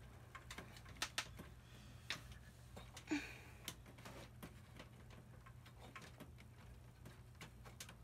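Faint, irregularly spaced light clicks and ticks, about a dozen in all, over a low steady hum.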